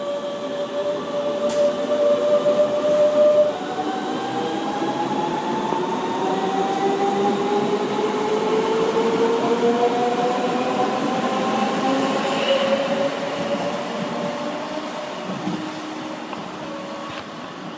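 DB class 425 electric multiple unit accelerating away from the platform: its electric traction drive whines in several tones that climb steadily in pitch, after a steady tone that steps up about three seconds in, over the rumble of the wheels. The sound fades as the train pulls away near the end.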